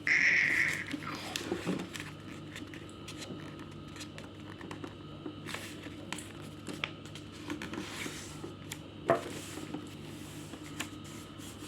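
A printed paper sheet being folded and creased by hand: scattered soft rustles, crinkles and taps over a steady low hum. A brief high-pitched sound lasting about half a second opens it and is the loudest part.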